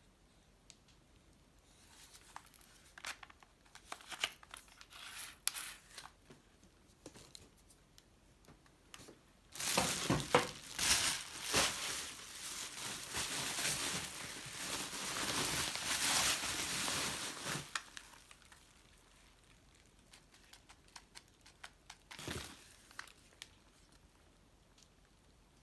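Packing material being handled and pulled apart while a box of tools is unpacked: scattered light rustles, then a continuous loud crinkling and tearing for about eight seconds in the middle, followed by a few soft clicks and a single knock.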